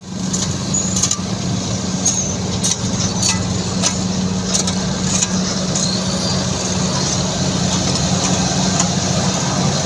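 Heavy vehicle engine running steadily with a low hum, with scattered clicks and knocks in the first half.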